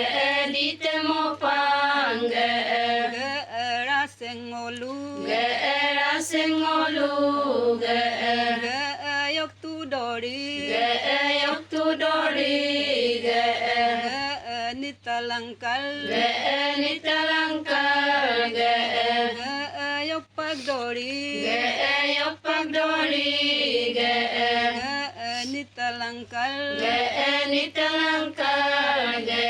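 A group of voices chanting a Ponung folk song of the Adi tribe in unison, in short repeated phrases with brief breaths between them.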